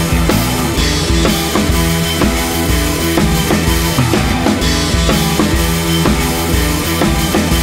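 Background music with a drum kit playing a steady beat.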